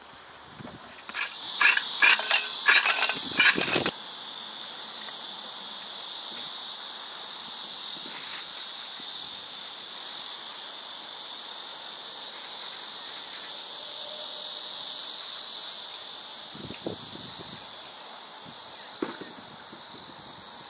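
Cicadas calling in a steady, high, hissing chorus. About a second in, a louder burst of rapid pulsing lasts roughly three seconds; a few soft knocks come near the end.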